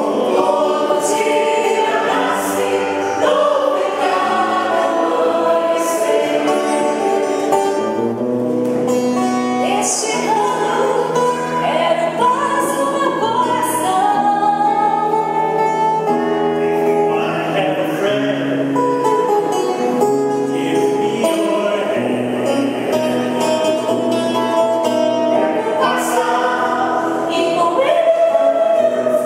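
A mixed group of male and female voices singing a gospel song in harmony, with acoustic guitar accompaniment.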